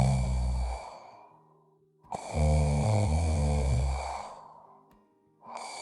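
Person snoring: low, drawn-out snores, one fading out about a second in, a longer one from about two to four and a half seconds, and another starting near the end. The sound is the soft tissue of the relaxed airway vibrating in the airflow during sleep.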